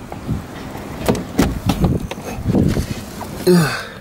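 Someone getting into a car: the driver's door open and a body settling into the seat, with a short, loud thud about three and a half seconds in as the car door is pulled shut. Low voice sounds come and go throughout.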